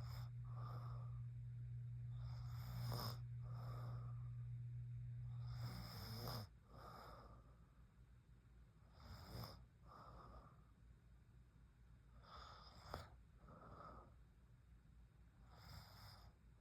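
A sleeping woman snoring faintly, with slow breaths in and out about every three seconds. A steady low hum sits under the first six seconds and then cuts off suddenly.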